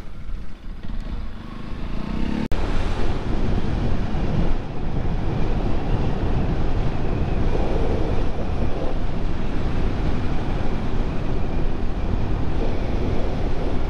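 Wind rushing over the microphone of a moving motorcycle, with the Bajaj Pulsar NS 200's single-cylinder engine running underneath. The engine note rises over the first couple of seconds, then the wind noise comes up suddenly about two and a half seconds in and stays dense and even as the bike rides at speed.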